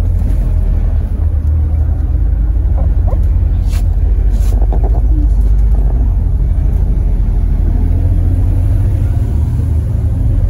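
Interior of a MAZ-203 city bus under way: a loud, steady low engine and road rumble, with a couple of brief clicks about four seconds in.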